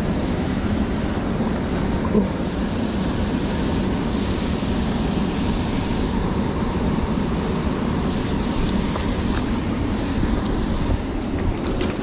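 Steady rush of fast river water churning over rocks, with one brief knock about two seconds in.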